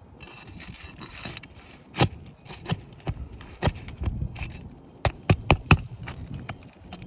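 Tool work on a damaged roof shingle being removed: a short scrape, then scattered sharp taps and knocks, with a quick run of four knocks near the end.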